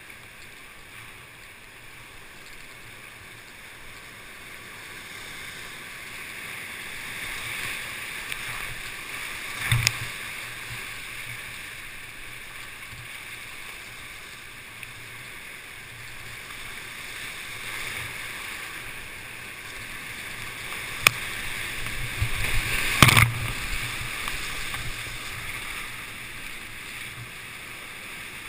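Rushing whitewater of a class V river rapid heard from inside a kayak, swelling and easing as the boat runs through the waves. Sharp splash-like slaps cut through it about ten seconds in and twice more past the twenty-second mark, the last the loudest.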